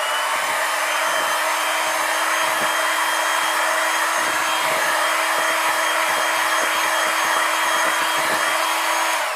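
Electric hand mixer running steadily at one speed, its beaters whisking runny cake batter.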